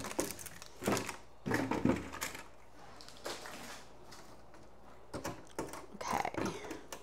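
Scattered knocks, taps and clatter of food containers and packages being handled and set down while clearing out a refrigerator, irregular, about one every second or so.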